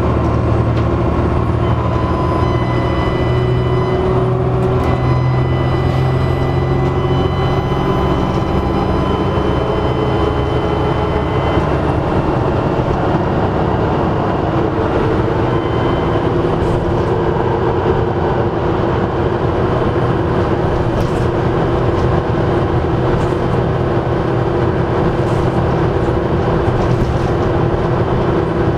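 Dennis Trident double-decker bus running under way: steady engine and road noise with a high turbocharger whine. The whine is clearest for roughly the first ten seconds, then fades back into the running noise.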